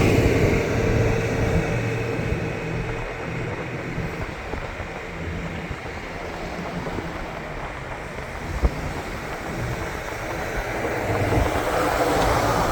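A car driving: steady road and tyre rumble with engine noise, a single short knock about eight and a half seconds in, and the noise swelling louder near the end.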